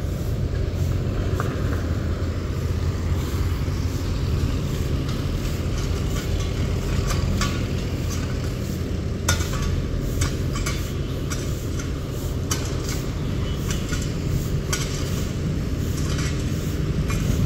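Diesel engine of a Hydra mobile crane running steadily, with many irregular sharp clicks and knocks over it, thickest in the second half.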